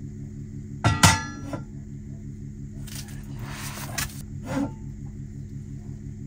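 A metal frying pan clanks down onto a portable gas stove's grate about a second in, with a brief ringing. A crinkly rustle follows about three seconds in as the foil window insulation is handled. A steady low hum runs underneath.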